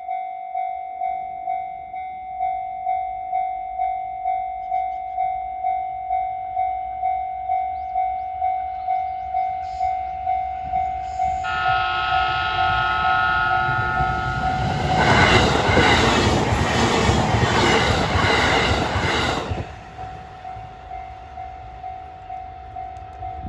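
Japanese level-crossing warning bell ringing about twice a second. About halfway through, a train horn sounds for a few seconds, then a test-run train passes over the crossing for about four seconds, its wheels clattering over the rails and drowning out the bell, which is heard again once it has gone.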